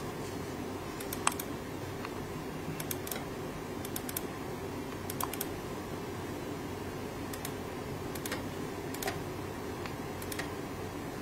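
Computer mouse clicking through software installer dialogs: scattered sharp clicks, several in quick pairs like double-clicks, over a steady low hum.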